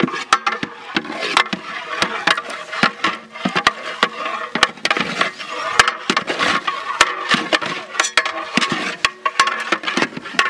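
Metal ladles clanking and scraping against a large aluminium pot while a big batch of scrambled eggs is stirred, with rapid, irregular sharp clinks.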